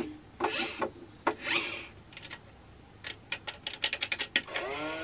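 A battery-powered plastic toy garbage truck being worked by hand: a few short scraping sounds, then a quick run of plastic button clicks. Near the end, its electronic sound effect starts with a rising tone. The owner thinks the toy sounds broken.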